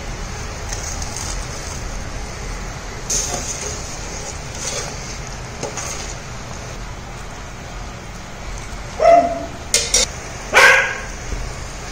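Tamarind gravy with oil and tempering bubbling steadily in a steel pan, with a few faint spoon-stirring sounds. About nine seconds in, a dog barks three times, louder than the cooking.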